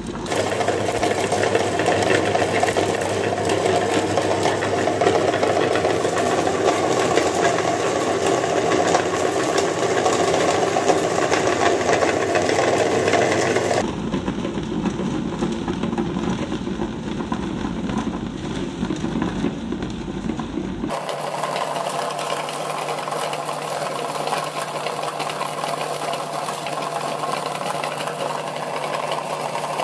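Electric meat grinder running steadily, its auger churning ball fragments into powder with a mechanical rattle. The sound changes abruptly about 14 and 21 seconds in.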